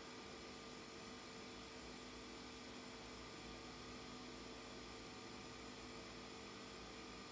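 Faint, steady hiss and hum of VHS playback under a silent copyright-warning scroll: tape and playback background noise with a few steady humming tones and no other sound.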